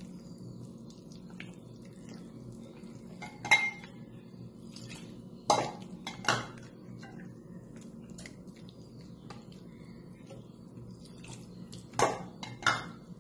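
A spoon stirring semolina batter in a bowl, clinking against its sides with many light ticks and a few louder knocks, two of them in quick succession about halfway and two more near the end. The batter is being beaten smooth so no lumps remain.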